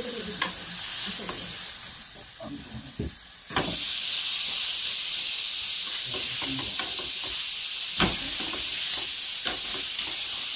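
Skirt steak sizzling in a hot ridged griddle pan, a steady hiss that gets clearly louder about three and a half seconds in. A few sharp clicks of metal tongs against the pan as the steak is handled.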